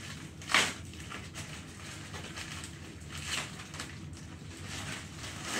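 Plastic mailing bag rustling and crinkling as it is handled, with a sharp, loud crinkle about half a second in and a smaller flurry a little past the middle.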